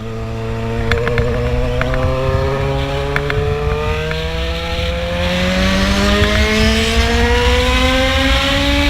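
Yamaha XJ6 motorcycle's inline-four engine through a 4-into-1 exhaust, its pitch rising slowly and steadily as the revs climb and getting louder.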